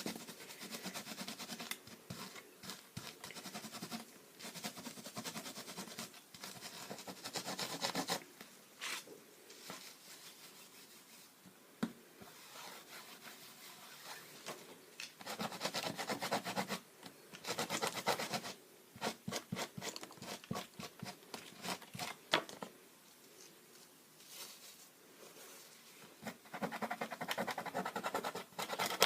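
Paint being rubbed and scrubbed off a stencil: irregular bouts of scratchy rubbing a few seconds long, with short pauses and a few light clicks between them.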